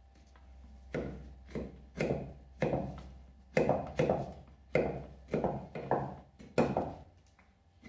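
A medium fixed-blade bushcraft knife chopping into a stick of wood on a wooden stump: a run of about eleven sharp knocks, roughly two a second, starting about a second in.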